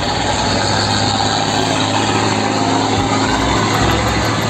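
Tanker truck's engine running steadily as it drives along a road, with tyre and traffic noise.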